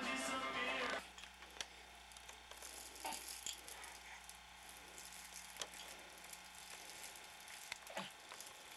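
Music with voices for about a second, cut off abruptly. Then quiet room tone with a steady low hum, broken by a few faint clicks and rustles.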